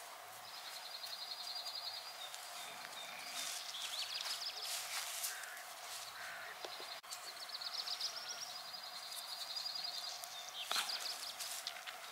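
Songbirds singing: two long, high, rapidly repeated trills, one starting just after the start and one about seven seconds later, with shorter chirps and sweeping calls between.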